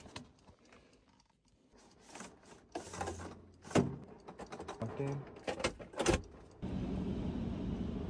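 Clattering and sharp clicks as the air filter is handled and slid at the heat pump air handler's filter slot. About two-thirds of the way in, a steady rush of air with a low hum starts abruptly: the air handler's blower running.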